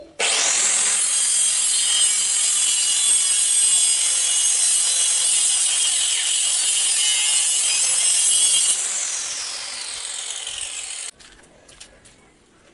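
Compact handheld electric circular saw ripping lengthwise along a wooden plank, its motor whining steadily under load. About three-quarters of the way through, the motor slows with a falling whine, and the sound then stops abruptly.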